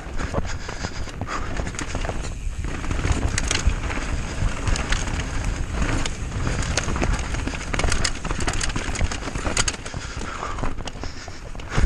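Mountain bike riding down a rough dirt trail: a constant low wind rumble on the microphone, with the bike rattling and knocking over bumps throughout.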